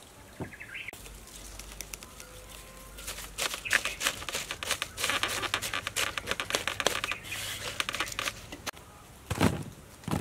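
Crisp cut cabbage leaves being turned over by hand in a steel bowl: a dense run of crackling and crunching clicks, with a louder thump near the end.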